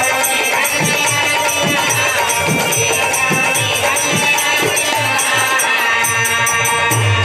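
Instrumental Biraha folk accompaniment: a drum keeping a steady beat with jingling metal percussion over sustained held notes.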